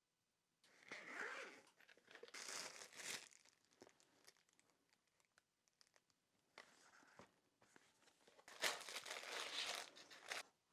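Packaging being handled: crinkling and rustling of plastic wrapping in several irregular bursts, the loudest near the end as a plastic-wrapped pack of sample sheets is pulled out.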